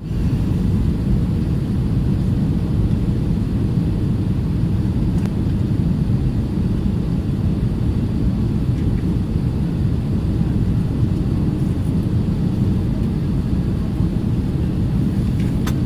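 Steady low rumble of cabin noise inside an Airbus A320 airliner on its descent, from the engines and the airflow over the fuselage. A few faint clicks sound over it.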